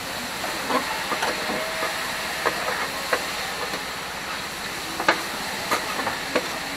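Skewered hormone (grilled offal) sizzling steadily on a flat griddle, with a metal spatula clacking and scraping against the plate several times as the skewers are pushed and turned.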